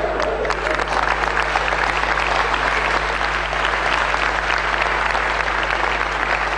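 Audience applauding steadily, a dense patter of many hands clapping, over a faint steady low hum.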